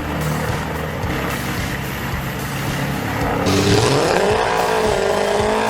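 A large engine runs steadily. About three and a half seconds in, the sound changes abruptly to an engine revving, its pitch rising and then wavering up and down.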